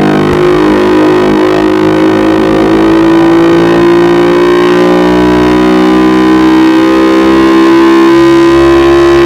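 Vehicle engine and exhaust running at steady high revs, its pitch rising slowly as it accelerates.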